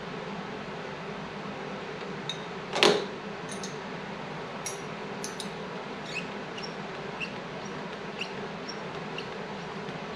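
Metal clinks of a wrench working the brake-line fitting at a motorcycle's front master cylinder. There is one sharp clank about three seconds in, then small light clicks roughly every half second, over a steady background hum.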